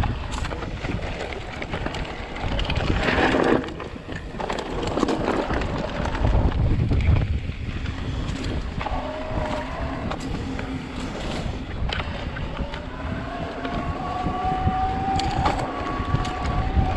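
Shimano Steps E8000 mid-drive e-bike motor whining under hard pedalling in full boost assist, its pitch wavering and rising slowly near the end. Wind on the microphone and knocks and rattles from the bike over rock run underneath.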